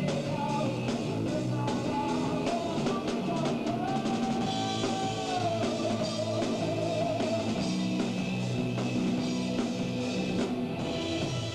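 Live rock band playing, the drum kit and cymbal hits to the fore, with singing.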